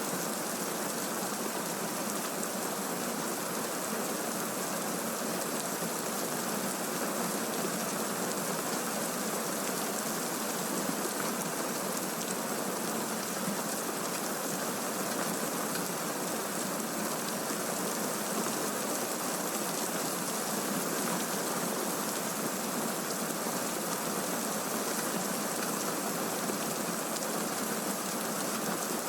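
Steady heavy rain, an even hiss with no let-up and no thunder.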